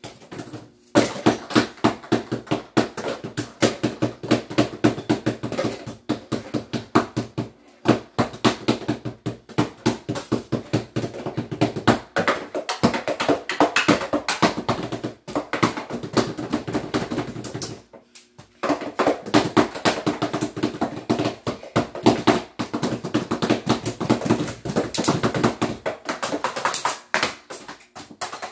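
Drum set being played in quick, busy strokes, several hits a second, with a short break about eighteen seconds in.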